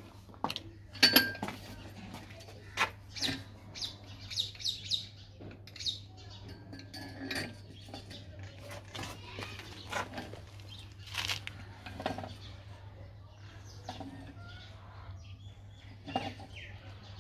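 Scattered, irregular metallic clinks and knocks of iron hand-pump parts and tools being handled while a hand pump is being swapped out, with birds chirping now and then.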